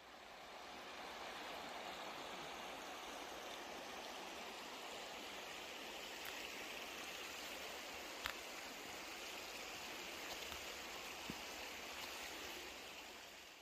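River water rushing steadily, fading in at the start and out near the end.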